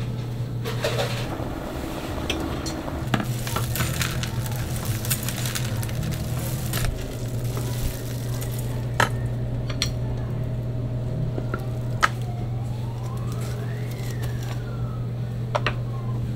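Kitchen work sounds over a steady low machine hum: scattered clicks and knocks of wooden spits and utensils as baked chimney cakes are pushed off their spits and handled. About twelve seconds in, a tone glides up and back down over two or three seconds.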